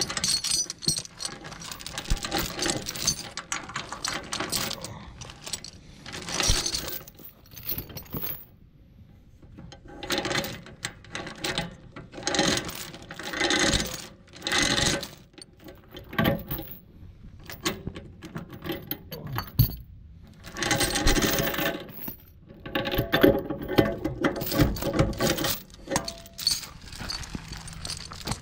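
Heavy steel chain being pulled and handled around a tractor's rusty hitch plate: the links clink and rattle in irregular bursts, with a short pause about eight seconds in.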